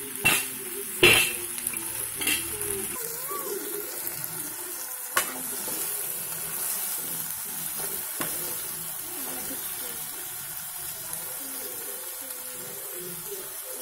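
Chicken curry sizzling in an aluminium pot, with the aluminium lid clanking several times in the first few seconds as it is lifted off and set down, and a sharp clink about five seconds in. A metal ladle stirs the chicken pieces near the end.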